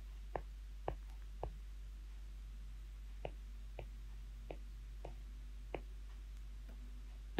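Faint, sharp clicks at uneven spacing, about nine in all with a pause near the start, made while handwriting digits into an on-screen table, over a steady low hum.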